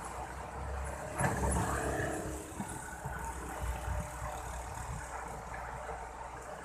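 Excavator engine running, growing louder for about a second and a half starting about a second in, then settling back.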